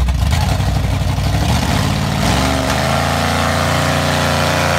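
Engines of lifted mud trucks running at full throttle in a truck tug-of-war, tires spinning in the mud. About two seconds in, the engine note rises and then holds high and steady.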